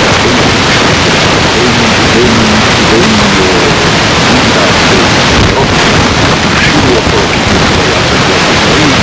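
Loud, steady hiss and static of a noisy recording, with a faint voice barely audible beneath it.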